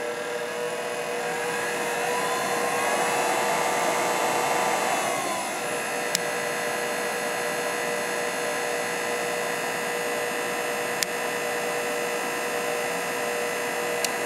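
Silverson L4RT-A laboratory homogenizer mixer running in water: its motor whine rises in pitch as the speed is turned up, runs louder with more rushing noise for a few seconds, then drops back to a steady whine about five seconds in. Three sharp clicks come later from the RPM/amps display switch being pressed.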